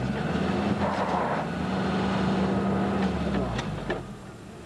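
Suzuki 4x4's engine held at steady revs as its wheels spin in sand, then dropping away about three and a half seconds in.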